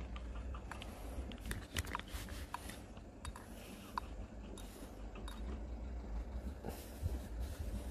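Faint scattered clicks and rustling from fingers handling a fishing rod and line, over a steady low rumble.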